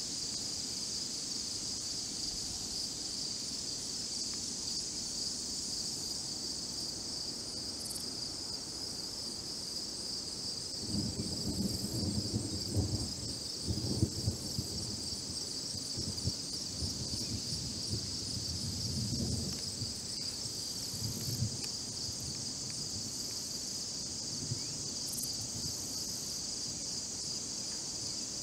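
Steady, high, finely pulsing insect chorus of late-summer crickets and katydids. About midway there is a stretch of low, uneven rumbling lasting several seconds.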